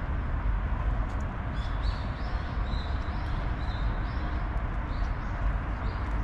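A bird calling a quick run of short high notes for a few seconds, over a steady low rumble.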